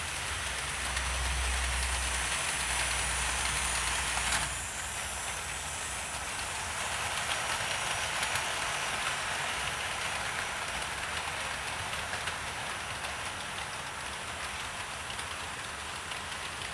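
OO gauge model trains running round the layout's track, a steady whirring rattle. A deeper hum under it stops abruptly about four and a half seconds in.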